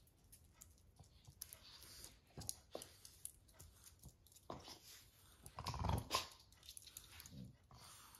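Two Boston terriers making small sounds close by as one brings a red ball to the other on a fleece bed: faint scattered clicks and rustles, with a short, louder low sound from one of the dogs about six seconds in.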